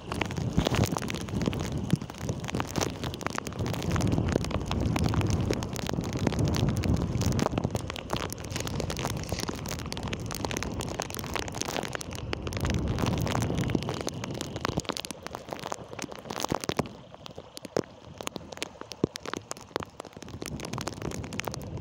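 Heavy rain falling, with drops striking near the microphone as a dense patter of fine clicks, and gusts rumbling on the microphone now and then. It eases off somewhat about seventeen seconds in.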